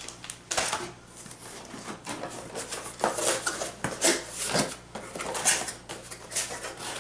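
Paper instruction sheets rustling and a cardboard accessory box being handled and its flap opened: irregular rustles and light knocks.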